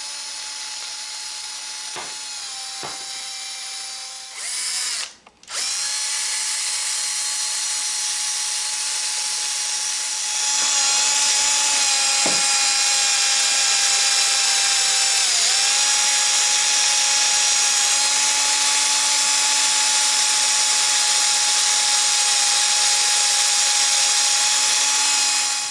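Mini drill spinning an abrasive sanding disc with a steady whine, cutting out briefly about five seconds in and starting again. From about ten seconds in it grows louder and hissier as the disc grinds rust off a metal tool, its pitch dipping for a moment under load.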